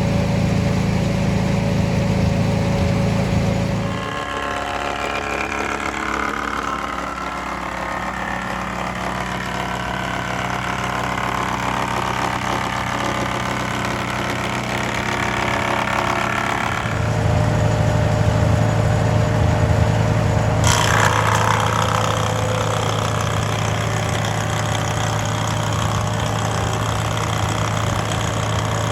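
1948 Farmall H's four-cylinder engine running steadily under belt load, driving an antique straight-knife wood planer. The sound shifts sharply about four seconds in and again past the middle, and a harsher hissing layer starts suddenly about two-thirds of the way through.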